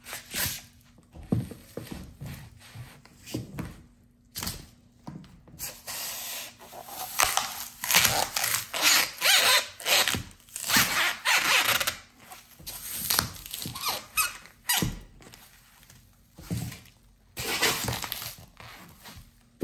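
Dry green floral foam crunching and breaking apart under stiletto high heels, in irregular crushing steps with short sharp knocks of the heels. The crunching is densest and loudest in the middle of the stretch and thins out toward the end.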